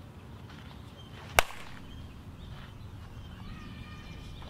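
Softball bat striking a ball: one sharp crack about a second and a half in, with a short ringing tail.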